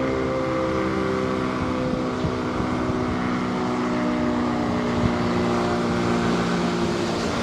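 Outdoor warning siren sounding a steady chord of several tones at an even loudness.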